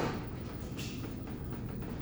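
Steady low hum of a cruise ship's interior, with a knock at the start and a brief clatter about a second in.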